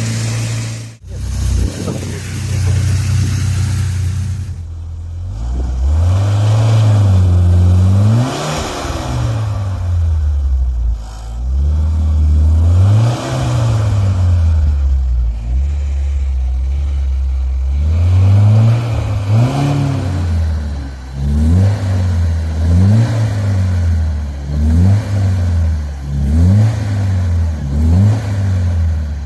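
UAZ SUV engine idling through a 63 mm exhaust pipe, then revved in repeated blips: a few slow swells, then short quick ones about once a second in the last third.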